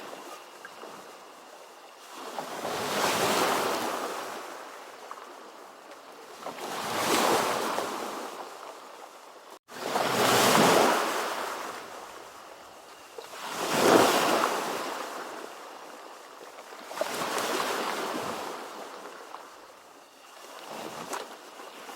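Ocean waves washing in, six surges about every three and a half seconds, each swelling to a rush and fading away. A split-second gap in the sound about ten seconds in.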